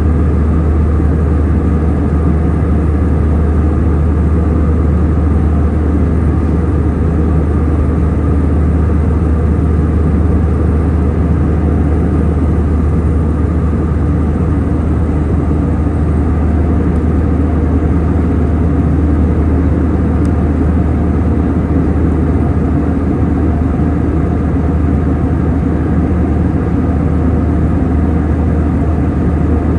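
Steady in-flight airliner cabin noise: a constant low drone of the engines and airflow over the fuselage, unchanging throughout.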